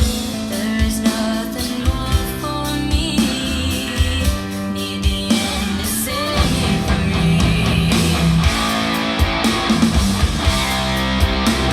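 Recorded rock music with guitar and a steady drum beat, played back for a listening test of a PCM58 multibit DAC.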